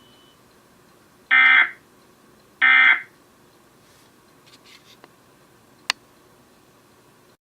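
Emergency Alert System end-of-message code: two half-second bursts of digital data tones about a second apart, signalling the end of the alert message. A single sharp click follows some seconds later.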